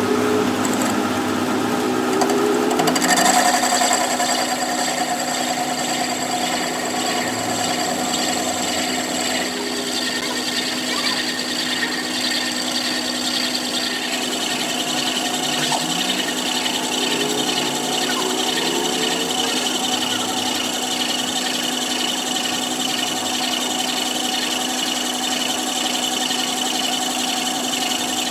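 Metal lathe running steadily while its cutting tool turns a spinning steel ring held in the chuck. The cutting sound gets louder and brighter about three seconds in, then holds even.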